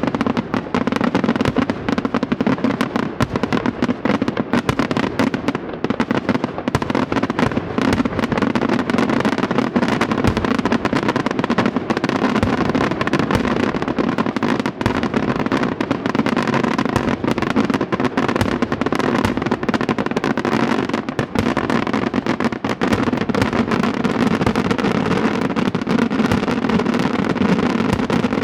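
Daytime fireworks barrage: a dense, continuous rattle of firecracker reports, many bangs a second, running without a break.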